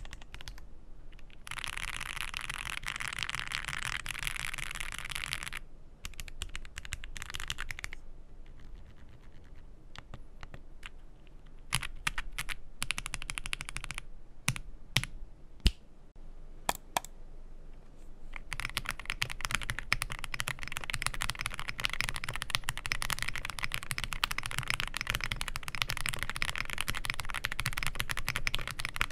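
Typing on a Zoom65 EE V2 mechanical keyboard: fast runs of keystrokes, then a sparser stretch of separate, sharper key presses in the middle, then continuous fast typing from about two-thirds of the way through.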